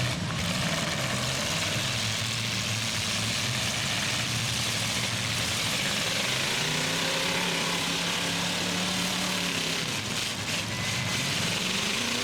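Truck and SUV engines running in a demolition derby, one revving up about halfway through, holding, then dropping back, over a steady hiss of noise.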